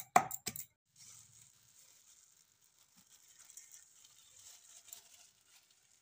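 A pestle pounds red chillies in a cup-shaped mortar in quick, sharp knocks, about three a second, which stop under a second in. A faint hiss with small scattered crackles follows.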